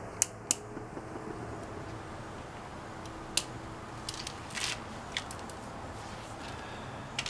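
A handful of scattered sharp clicks and light taps of hand tools being handled, over a faint steady low hum.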